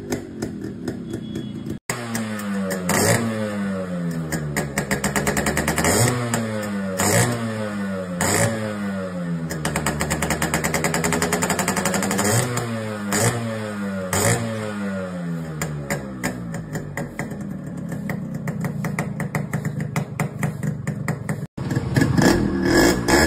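Yamaha RX100 two-stroke single-cylinder engine revved again and again at standstill, the pitch climbing and dropping with each twist of the throttle. The sound cuts abruptly twice as one bike gives way to another.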